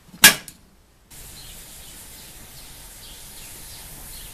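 A sharp metallic clink as the lid is set on an aluminium percolator. From about a second in comes a steady soft hiss of a large open flame burning under the pot.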